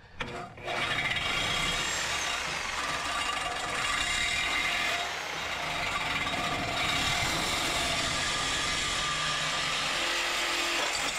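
Reciprocating saw running steadily through a cut, starting up under a second in.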